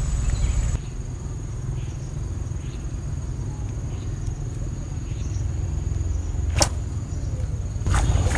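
Outdoor background at the water's edge: a steady low rumble with the constant high drone of insects, and two sharp clicks a little over a second apart near the end.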